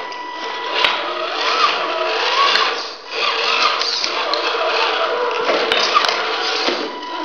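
Tamiya Ford F350 high-lift RC crawler's electric motor and gearbox whirring steadily as the truck crawls over broken bricks and tiles, with scattered clicks of the tyres on the rubble. The drive eases off briefly about three seconds in.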